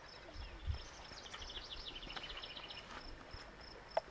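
Quiet outdoor ambience: an insect chirping steadily at a high pitch, about three times a second. A bird sings a quick run of chirps that steps down in pitch in the middle. There are a couple of low thumps in the first second and a sharp click near the end.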